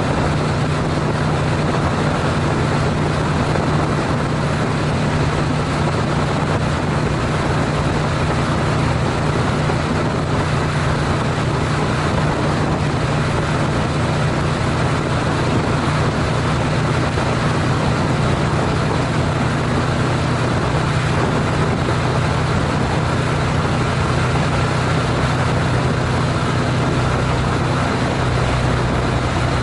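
Honda CTX700N motorcycle's parallel-twin engine running steadily at highway cruising speed, about 66 to 69 mph, under a constant rush of wind noise.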